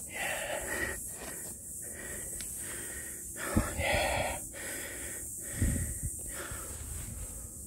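A person breathing heavily close to the microphone, a noisy breath in or out about every second, out of breath from the climb. Two soft low thumps come about three and a half and five and a half seconds in.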